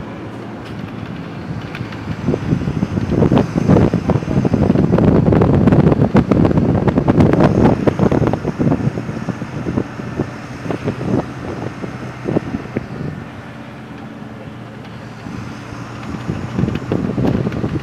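Wind buffeting the microphone on the open top deck of a moving sightseeing bus, over the bus's engine and road noise. The gusts are heaviest in the first half and ease off later.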